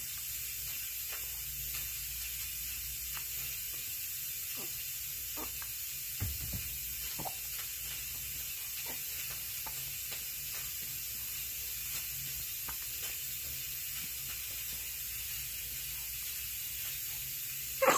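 A seven-week-old baby hiccuping: faint, short hics at irregular intervals of about a second, over a steady hiss.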